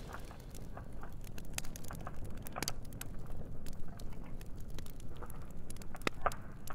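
Charcoal fire crackling, with irregular sharp pops over a steady low rush.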